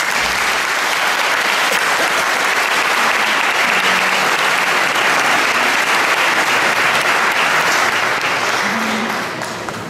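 Audience applauding: dense, steady clapping that breaks out at once at the end of the music and tails off near the end.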